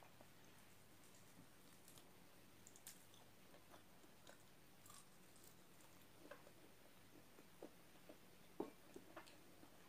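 Faint chewing of fried chicken: soft scattered mouth clicks and wet crackles, with one sharper click near the end.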